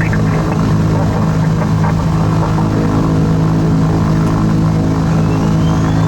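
Twin Continental TSIO-520 piston engines of a Cessna 340A running steadily, a deep, even propeller drone. Near the end a faint high whine rises and then holds.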